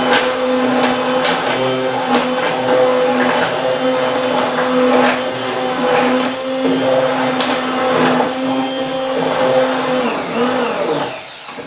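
Electric immersion (stick) blender running steadily in a saucepan, puréeing cooked onions and celery in their water. The motor hum drops away and stops near the end.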